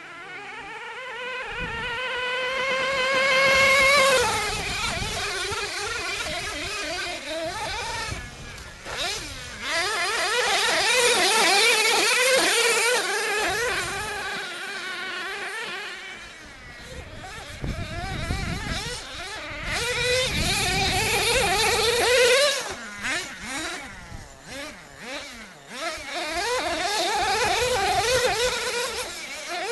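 Small two-stroke glow-fuel engine of a BSD 1/10 nitro 4WD monster truck revving as the truck drives. Its buzzing pitch climbs under acceleration to a loud peak about four seconds in, then rises and falls again and again with the throttle.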